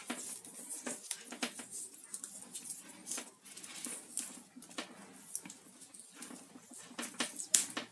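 Black PVC electrical tape being pulled off its roll and wound around a cable joint: irregular crackling peel and rustle of the tape and cable being handled, with one sharper crackle near the end.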